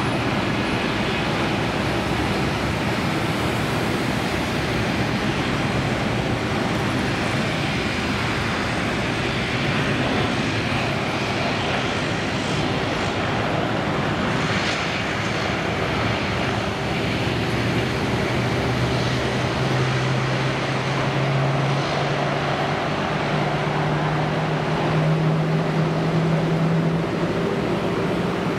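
Boeing 787-9 Dreamliner's jet engines at takeoff power during the takeoff roll and lift-off: a steady rushing jet noise, with a low hum that rises in pitch over the second half.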